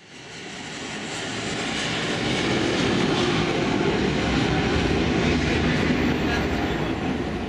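Jet airliner engine noise across the airfield: a dense, steady roar that swells in over the first two or three seconds and then holds level.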